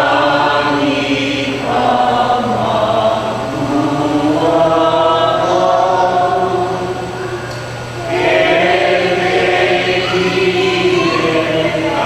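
A group of voices singing a slow worship song together in long held notes.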